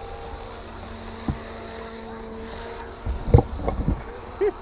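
Small motor of a remote-control model boat running with a steady whine as it speeds across the water. A few knocks from the canoe and paddles come about three seconds in.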